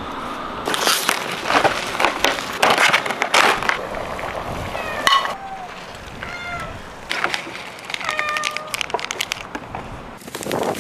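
Cats meowing: several short calls in the second half, some falling in pitch. Before them there is a run of sharp clicks and rustles.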